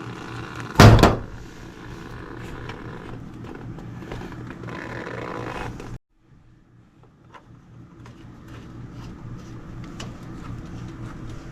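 Handling noises over a steady low mechanical hum: one loud knock about a second in and scattered small clicks and scrapes. Midway the sound cuts out abruptly, then the hum and small clicks return.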